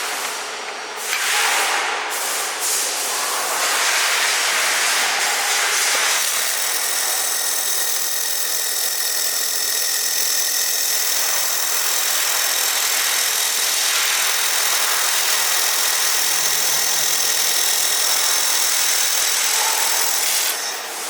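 Air-cooled 1500 W handheld laser welder with single wire feed, welding a stainless steel butt seam: a loud, steady hiss that starts about a second in and stops just before the end.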